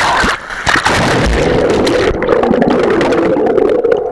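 Water rushing and churning over a camera that is under water on a water-slide run, heard as a loud, muffled underwater rumble that stays steady throughout.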